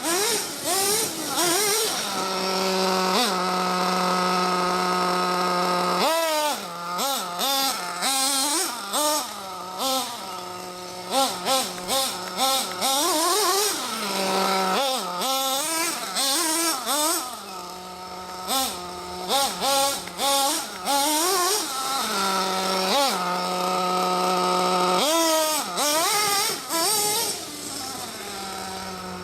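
Ofna Dominator RC truck's RB K10 nitro engine revving up and down under quick throttle blips as the truck is driven. Twice it holds one steady pitch for several seconds, early on and again past the middle.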